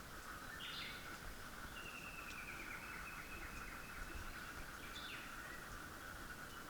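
White's thrush giving its thin, eerie whistled call: one long, slightly falling note about two seconds in, lasting about a second and a half. Short chirps come about a second in and near five seconds.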